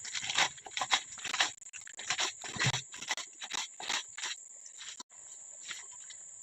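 Rapid kitchen knocks, about two or three a second, from utensil work in food preparation, stopping about five seconds in.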